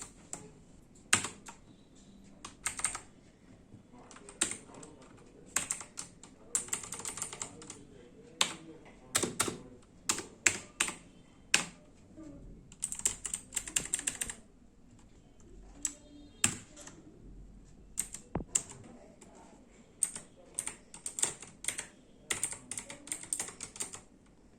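Keys being pressed on an HP GK320 mechanical keyboard with clicky blue switches. There are single clicks and short quick runs of clicks, with pauses between them.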